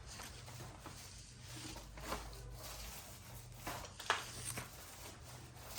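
Faint, soft squishing of a thick-nap paint roller working heavy primer onto a rough plaster wall, with a couple of soft knocks about two and four seconds in and a steady low hum underneath.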